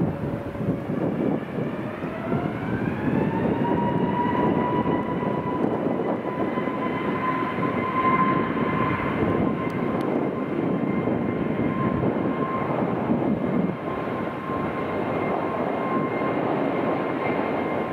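Airbus A321 jet engines spooling up. A whine rises in pitch over the first few seconds, then holds steady over the engines' roar, as for a takeoff.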